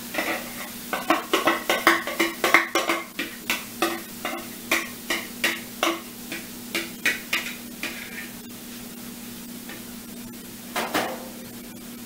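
A utensil scraping and clinking against a glass mixing bowl as marinated soy curls are emptied into a hot frying pan: a quick, uneven run of clicks that thins out after about eight seconds, with a few more near the end. A steady low hum runs underneath.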